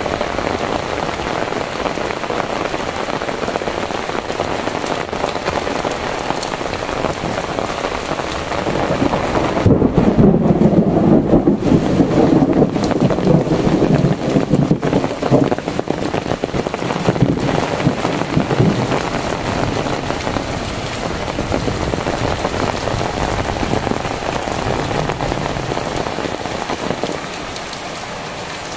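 Heavy rain falling steadily on a village path, roofs and plants. About ten seconds in, it turns louder and deeper for several seconds, then settles back.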